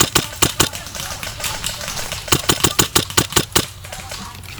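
Airsoft gun firing full-auto bursts of rapid shots, about seven a second. One burst ends just after the start and another runs for about a second from a little after two seconds in, with a few single shots between them.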